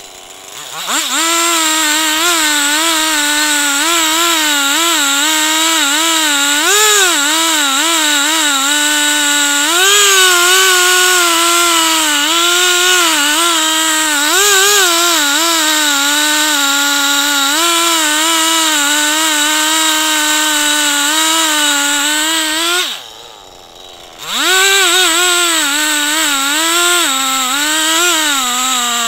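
Two-stroke chainsaw on a chainsaw mill running at full throttle through a log, its high engine note wavering up and down as the bar cuts. About 23 seconds in, the throttle is let off and the engine drops briefly, then it revs straight back up and carries on cutting.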